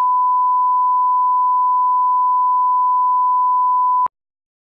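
Line-up test tone played with colour bars: one steady, unbroken pure pitch that cuts off with a click about four seconds in.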